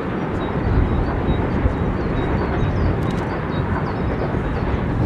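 Steam train with the SBB B 3/4 1367 locomotive crossing a viaduct, heard from afar as a steady low rumble.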